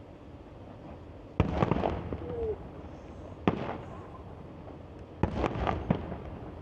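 Fireworks going off: a sharp bang with a short run of crackling pops about a second and a half in, a single bang about two seconds later, and another cluster of bangs near the end.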